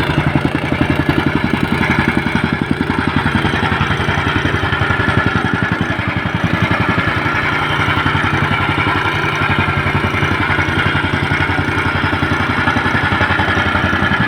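A small engine running steadily at a constant speed, with rapid even firing pulses.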